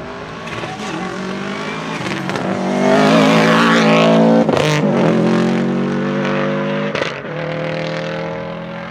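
Subaru Impreza 555 Group A rally car's turbocharged flat-four boxer engine under hard acceleration, rumbling as it approaches and passes, loudest a few seconds in. Two sharp cracks cut through, one about halfway and one near seven seconds in, and the engine tone then holds steady as it fades.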